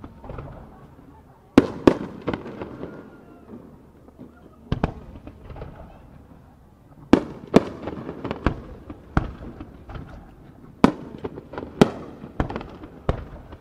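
Aerial firework shells bursting: a string of sharp bangs, about one a second at uneven intervals, each trailing off in an echo.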